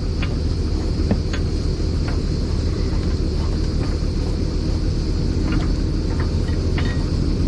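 Off-road Jeep's engine running steadily, a low even rumble, with a few faint clicks over it.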